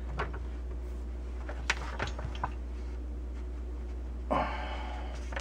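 A few faint clicks from plastic tubing and fittings being handled, over a steady low hum. About four seconds in there is a short rustle.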